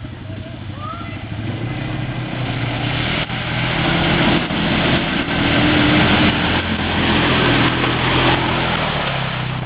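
ATV engine running under way, with a rushing noise over it. It grows louder over the first few seconds, is loudest in the middle, and eases off near the end.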